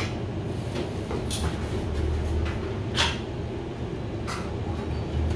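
Eating noises at a meal table: a few short, sharp clicks and cracks, the clearest about three seconds in, over a steady low hum.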